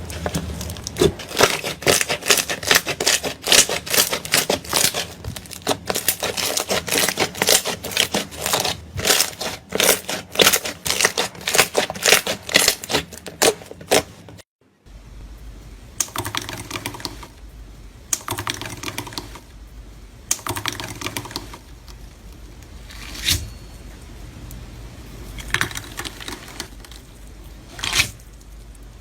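Slime being kneaded and pressed by hand, giving rapid wet clicks and pops. After a brief break about halfway through, the clicking comes in slower, sparser bursts.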